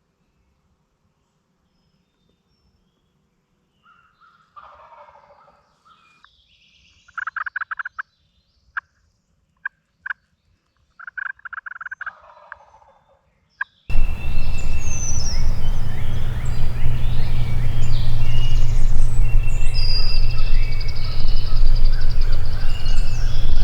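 A wild turkey gobbling from the roost, several faint gobbles in the first half. About halfway the sound jumps suddenly much louder, with songbirds chirping over a low steady rumble, and a loud gobble comes near the end.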